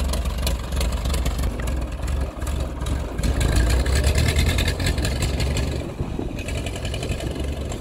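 1941 Ford 9N tractor's four-cylinder flathead engine running as the tractor drives off. The engine gets louder a few seconds in and then fades as the tractor moves away.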